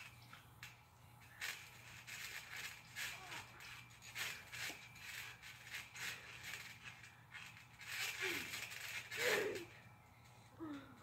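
Trampoline springs and frame creaking and rattling in quick, irregular clicks as two people wrestle on the mat. A short voice cry about nine seconds in is the loudest moment.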